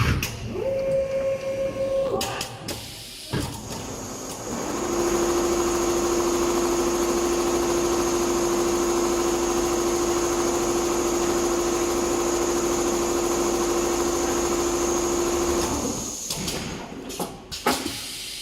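Multi-head industrial leather sewing machine: a brief motor whine and clicks, then about four seconds in it runs at a steady speed with a constant hum for about twelve seconds before stopping, followed by more clicks.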